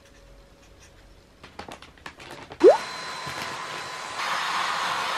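A few soft handling clicks, then a vacuum cleaner switches on about two and a half seconds in, its motor whine rising quickly, and runs with a steady rushing hiss that gets louder about four seconds in. It is sucking the air out of a vacuum storage bag packed with clothes.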